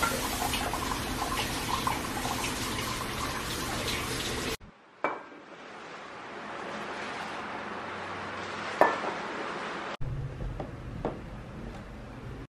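Liquid pouring through a stainless steel funnel into a glass bottle, with light clinks of metal and glass. The sound cuts off suddenly and gives way to a quieter stretch with a few sharp clicks, the loudest a single short clink near the middle, then a couple of faint knocks.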